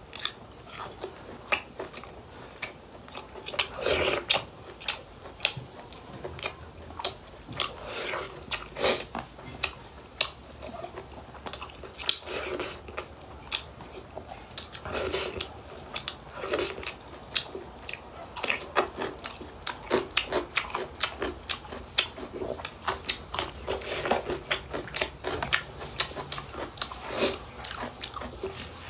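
A person chewing and biting into pork and rice eaten by hand, close to the microphone: many short mouth clicks and smacks, with louder clusters every few seconds.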